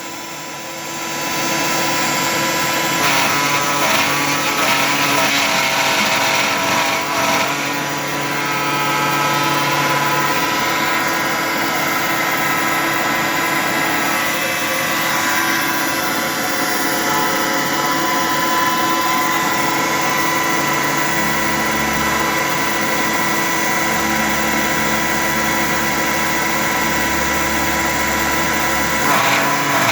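A CNC 3018 router running with a cyclone dust-extraction vacuum: a steady motor whine with several pitches. Rougher, scratchier passages come a few seconds in, and a low hum joins about two-thirds of the way through.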